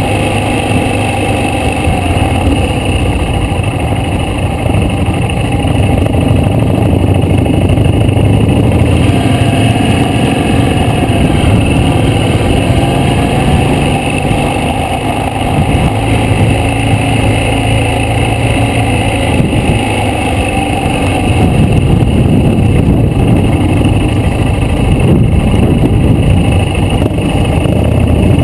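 Motorcycle engine running under way, heard on board, with wind rush on the microphone; the engine note rises and falls as the throttle opens and closes.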